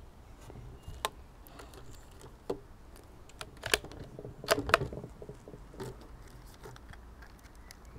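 Sharp metallic clicks and clacks, with a quick cluster of them a little past the middle: the bolt of a CO2-powered bolt-action air rifle being worked to chamber the next .177 pellet from its magazine, amid handling of the gun.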